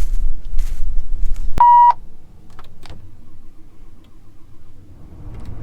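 Wind buffeting the microphone with a few light knocks, then a single short electronic beep from the combine's cab controls as the key is switched on, after which only a faint low hum remains.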